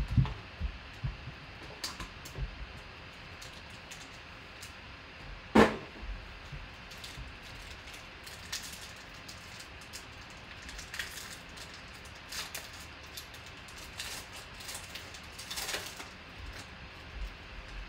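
Hands handling a trading card box and a foil card pack: scattered light taps and rustles, with one sharp knock about five and a half seconds in. In the second half comes crinkling as the pack's foil wrapper is torn open.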